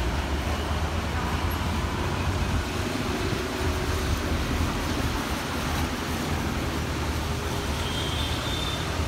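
Storm wind gusting, with a steady low rumble of wind buffeting the microphone.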